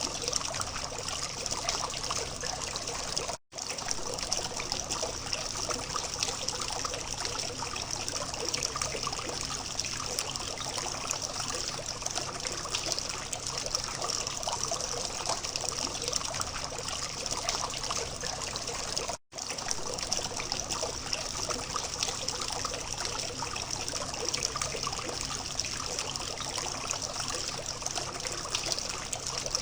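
Water from a small fountain trickling steadily, cutting out for an instant twice.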